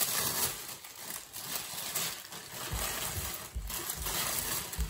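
Brown packing paper crinkling and rustling as it is unwrapped by hand, with a few dull low bumps from handling in the second half.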